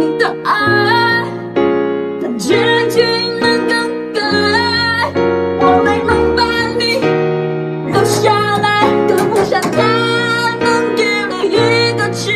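Music: keyboard chords changing about once a second under a wavering singing voice.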